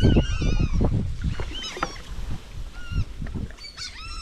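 A big flock of birds calling overhead with many short, arched, repeated cries as they feed on fish at the surface, over low knocks and water noise from a paddled plastic kayak. The knocks and water noise are loudest in the first second and a half.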